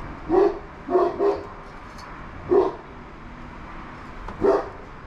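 A dog barking: five short barks spread out, two of them close together about a second in.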